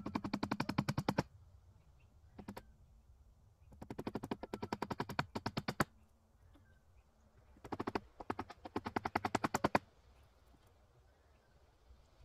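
Rapid mechanical clicking in three bursts of one and a half to two seconds each, about fourteen clicks a second and growing louder within each burst, with one short burst between the first two.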